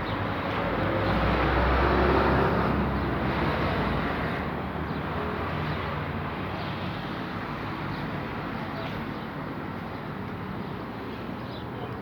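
Outdoor traffic noise: a vehicle passes, loudest about two seconds in, then fades to a steady background hum.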